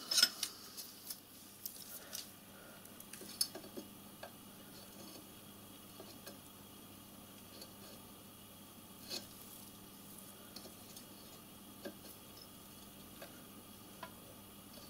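Light metallic clicks and taps a few seconds apart, from digital calipers being set against the edge of a freshly bored hole in a steel smokebox, over a faint steady hum. A sharper knock comes right at the start.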